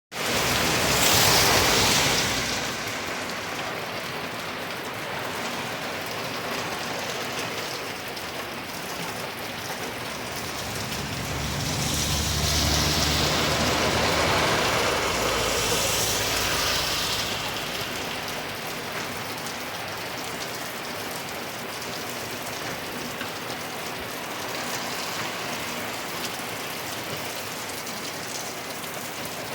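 Hard rain falling in a steady hiss. It swells louder briefly near the start, and again for several seconds about halfway through, when a low rumble joins it, as of a vehicle passing on the wet highway.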